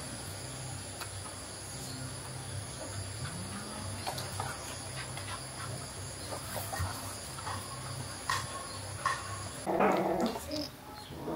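Crickets chirring steadily with a few small knocks, then, about nine and a half seconds in, newborn puppies crying and whimpering loudly.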